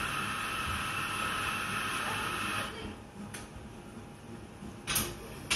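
Café background: a steady hissing machine noise runs for about three seconds and then stops, leaving quieter room sound with faint chatter and a few light clicks and knocks near the end.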